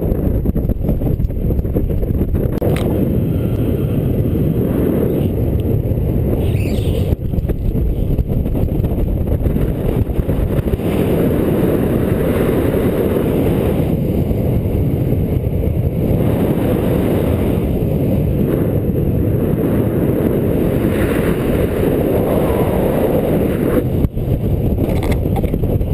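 Wind rushing over the microphone of a paraglider in flight: a loud, steady, low rush of air with no breaks.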